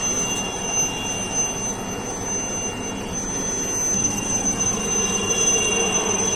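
Helicopter turbine engine running, a steady rushing noise with a high-pitched whine held over it, growing a little louder near the end.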